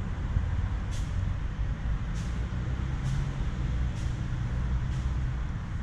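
A kitten crunching dry kibble, heard as faint crisp clicks about once a second, over a steady low rumble.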